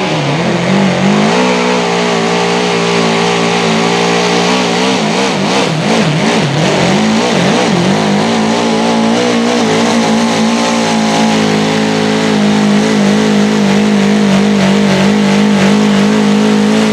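Tractor-pulling machine's engine held at high revs under load while pulling the sled. The revs dip at the start, climb about a second in, then stay high with some wavering through the middle.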